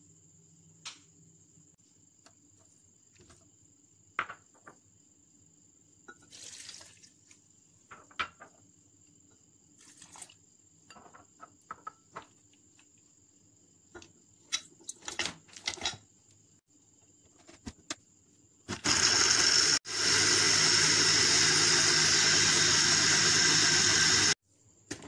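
Countertop electric blender with a glass jar running for about five seconds, with a brief stop near the start, blending mango into a smooth drink. Before it, scattered clinks and knocks as ingredients go into the jar and the lid goes on.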